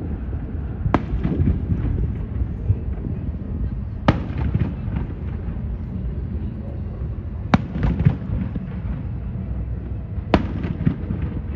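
Fireworks shells bursting: about five sharp bangs, each trailing off in echoes, over a steady low background noise.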